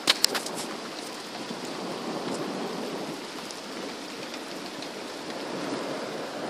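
Steady rain falling during a thunderstorm, with two or three sharp clicks just after the start.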